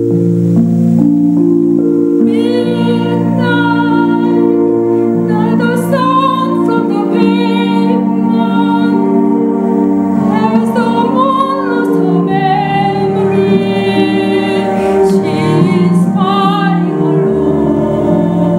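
A woman singing a slow solo stage-musical ballad with vibrato, in long phrases, over an accompaniment of sustained held chords. The voice comes in about two seconds in.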